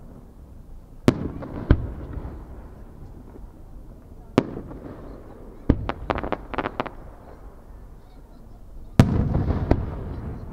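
Aerial firework shells bursting: single sharp bangs about a second in, again shortly after, and at about four seconds, then a quick string of smaller crackling pops around six seconds. Near the end comes a heavier bang with a lingering rumble and a second bang close behind.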